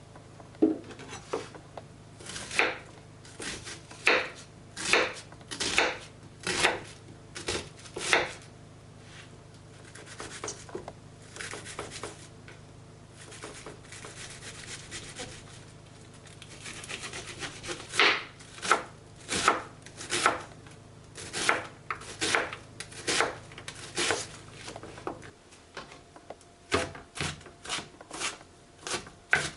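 Kitchen knife chopping on a cutting board in steady strokes. Midway there is a quieter stretch of scraping, then the chopping comes faster near the end.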